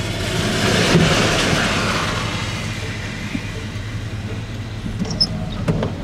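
Oncoming truck passing on wet pavement: a hiss of tyres on water that swells in the first second or two and then fades, over the steady low hum of the vehicle's own engine, heard from inside its cab.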